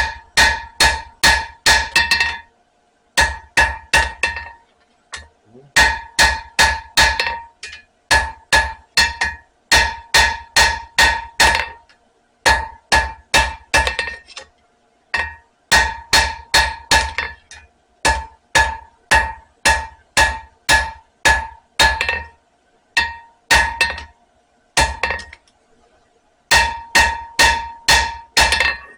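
Hand hammer striking hot spring steel on an anvil, forging down a fat spot in the drawn-out knife blank. The blows come in runs of ringing strikes, about three a second, broken by short pauses.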